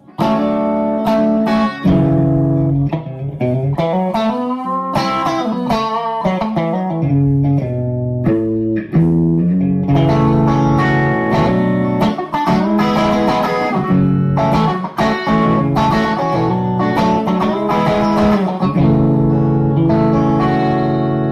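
Fender Stratocaster played through a Bad Cat Bobcat 5R tube combo amp with a Wampler Tumnus overdrive pedal engaged: overdriven electric guitar riffs and chords. A few seconds in there are string bends.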